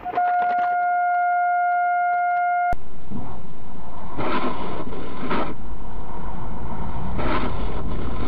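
A steady single-pitched tone held for nearly three seconds, cut off abruptly. Then continuous vehicle road and engine noise with a few louder swells.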